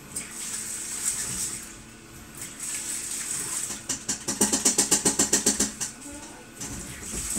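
Hitachi BeatWash BW-8PV washing machine washing, with water sloshing in the drum. About halfway through, a fast rattle of about eight clicks a second lasts a second and a half: the karakara noise it makes on reverse rotation, a motor fault that was cured by replacing the motor.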